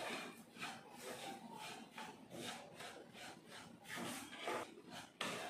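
Wooden spatula scraping and stirring semolina (rava) as it roasts in a frying pan: faint, repeated scraping strokes, about two a second.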